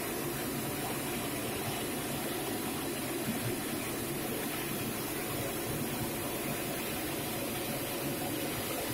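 Ecoflam oil-fired burner running: a steady rushing noise over a low hum from its blower motor and fan.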